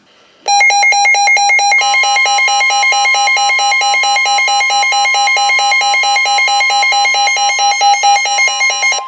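A weather alert radio's loud, rapidly pulsing electronic alarm beeping, with the National Weather Service's steady warning alarm tone joining about a second in. This is the alert that announces a new warning coming over the broadcast.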